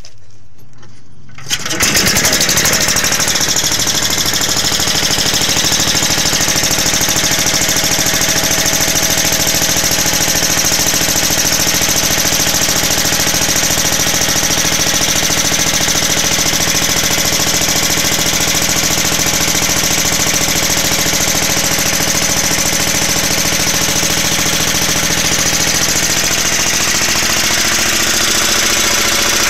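Single-cylinder 16 hp Briggs & Stratton cast-iron-bore engine driving a 4,000-watt generator. It starts about one and a half seconds in and then runs steadily.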